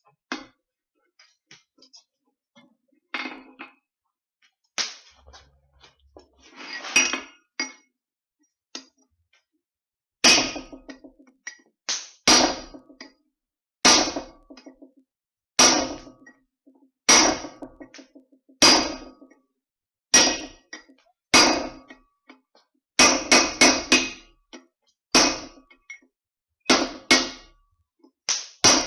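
Hand hammer striking steel on an anvil, each blow ringing. A few scattered knocks and taps at first, then from about ten seconds in a steady blow roughly every one and a half seconds, with quick runs of several blows later on.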